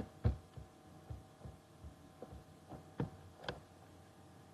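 Faint, irregular clicks and taps from working a laptop's mouse and keyboard, about ten of them, the loudest just after the start, over a low steady electrical hum.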